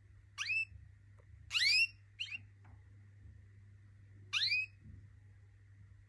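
Domestic canaries calling: four loud, upward-sweeping whistled call notes, irregularly spaced, over a low steady hum.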